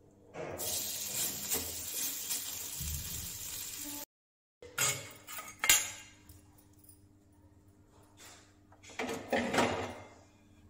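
Metal pots and pans clanking and knocking as they are moved about on a gas stove, with one sharp knock louder than the rest. Before that comes a steady rushing noise lasting a few seconds.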